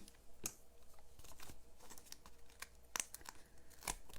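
Faint paper and cardstock handling: scattered small crinkles and light ticks as pieces are picked up and moved.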